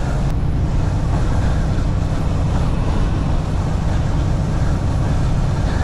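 Steady low drone of a semi truck cruising at highway speed, heard inside the cab: the diesel engine's hum mixed with road and tyre rumble.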